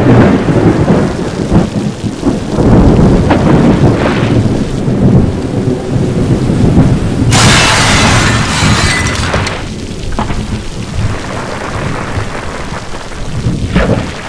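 Thunderstorm sound effect: heavy rain with rolling thunder. About seven seconds in, a louder rushing crash lasts around two seconds, then the storm settles back.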